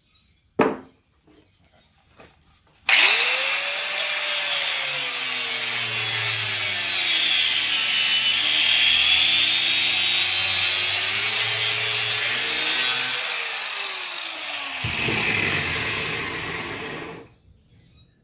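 A single sharp knock about half a second in. Then, about three seconds in, an electric angle grinder with a cut-off wheel starts and cuts into an electric motor's stator, its pitch dipping and rising as the wheel is loaded. It winds down and stops about three-quarters of a second before the end.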